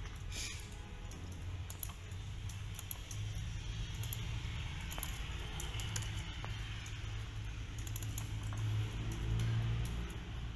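Laptop keyboard keys tapped in scattered, irregular clicks over a low steady hum.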